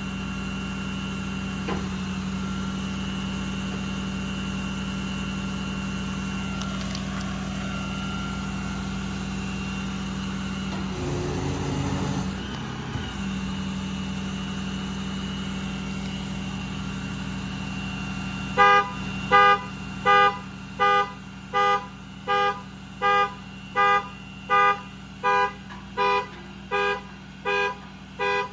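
Crane truck running with a steady mechanical hum as the Autocrane's hydraulics are worked, with a brief louder rough surge about eleven seconds in. From about eighteen seconds a loud electronic warning beeper starts, sounding evenly about three beeps every two seconds.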